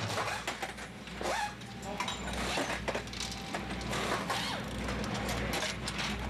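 Drag-strip ambience: short clicks and mechanical clatter with muffled voices over a steady low hum.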